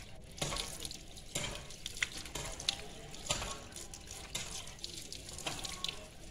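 Water from a garden hose running over a dog's wet coat as it is rinsed, splattering onto a concrete floor in irregular small splashes.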